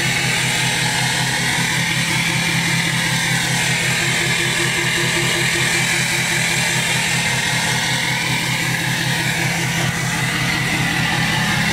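Ford King Ranch pickup's diesel engine idling steadily, heard close to the tip of its new axle-dump exhaust, with a low, evenly pulsing exhaust note.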